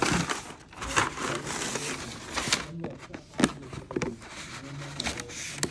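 Cardboard shoe box being handled and opened by hand: irregular rustling and scraping, with a few sharp taps or knocks.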